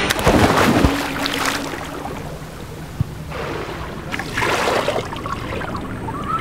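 Water splashing as a swimmer plunges in, followed by softer rushing water, with a second swell of water noise about halfway through as they swim underwater.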